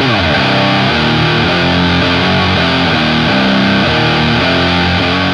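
Electric guitar played through an Electro-Harmonix Hell Melter distortion pedal, riffing with its HM-2-style "Swedish chainsaw" tone. A quick slide down in pitch at the start is followed by heavy distorted chords changing about twice a second.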